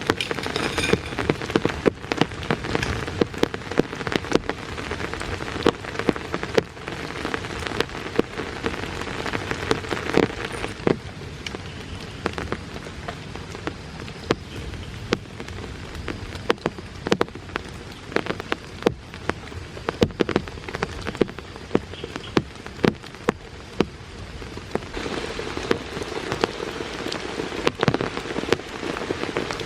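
Steady rain with many close, sharp drops tapping on a surface, heavier for the first ten seconds or so, lighter through the middle, and heavier again near the end.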